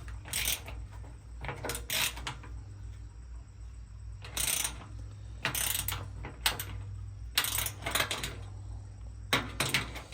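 Small steel nuts and bolts being tightened with a 7/16 wrench: irregular bursts of sharp metallic clicks and clinks.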